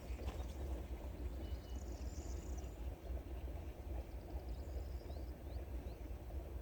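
Rural outdoor ambience: a low, fluctuating rumble with a few faint, short rising bird chirps in the second half.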